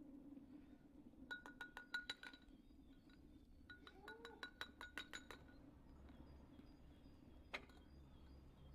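Two quick runs of rapid clinking strokes, like a knife chopping vegetables against a hard ringing surface, followed by one more single clink near the end.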